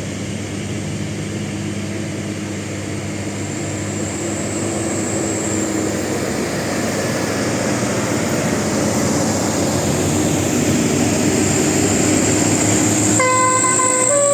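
A bus running with steady engine and road noise that slowly grows louder. About a second before the end a telolet horn starts playing a melody of short, stepped musical notes.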